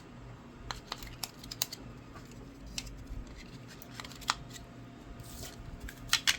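Light clicks and plastic taps from handling a small 3D-printed battery box, scattered irregularly with a quick cluster near the end.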